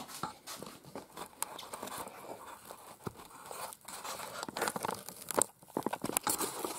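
Rustling, crackling handling noise with scattered clicks as a camera is picked up and handled, growing denser and louder over the last two seconds.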